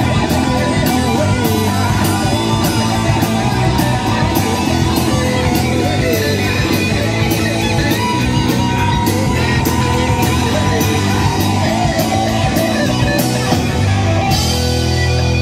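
Live rock band playing: electric guitars, electric bass and drum kit, with the drums keeping a steady beat. Near the end the drum hits stop and a low chord is held.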